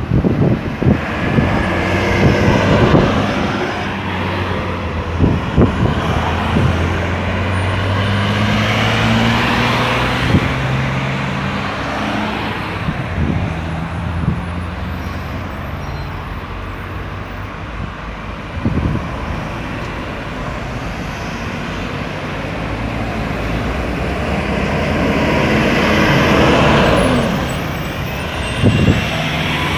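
Road traffic circulating at a busy roundabout: cars, trucks and buses passing with engines running and tyres on the road. A heavy vehicle's engine is prominent a few seconds in, and another vehicle swells past near the end.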